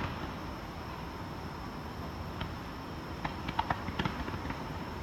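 A steady hiss of outdoor background noise, with a quick cluster of sharp clicks or taps about three to four seconds in.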